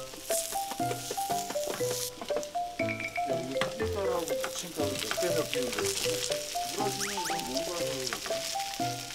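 Shredded potato pancake sizzling steadily in oil in a frying pan, under playful background music with a bouncy melody of short stepping notes.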